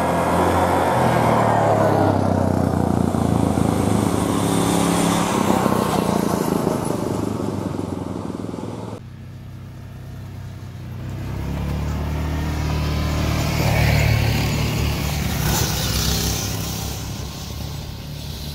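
Trailmaster Mini XRX go-kart's Lifan 168F single-cylinder 5.5 hp petrol engine running steadily as the kart drives. The sound breaks off at a cut about nine seconds in, then builds again, is loudest about five seconds later and eases off toward the end.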